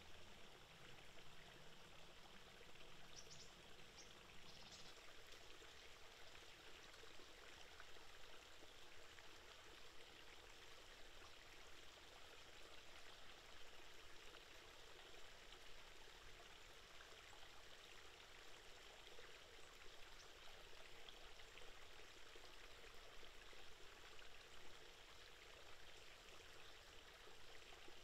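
Faint, steady trickle of running water, with a few brief high ticks about three to five seconds in.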